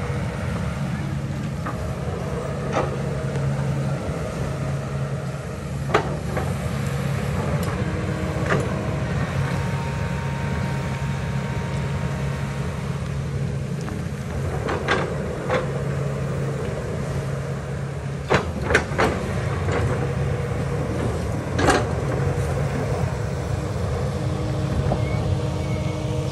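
Kobelco excavator's diesel engine running steadily under work, with several sharp knocks over it, most of them in the second half.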